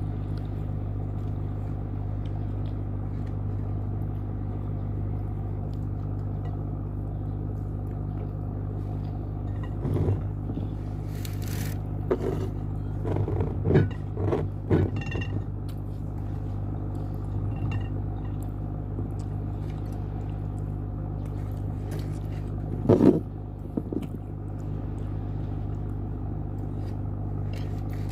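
Eating sounds from a mukbang of spicy chicken feet: scattered chewing, biting and clattering noises, clustered about ten to fifteen seconds in and again near twenty-three seconds. A steady low hum runs underneath.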